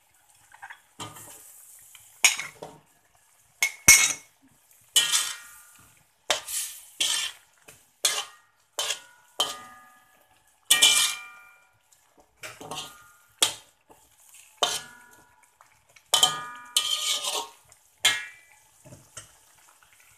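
Metal spatula scraping and knocking against a metal wok as eggplant pieces are stirred into curry paste: irregular clattering strokes, roughly one a second, many ringing briefly, with one hard knock about four seconds in.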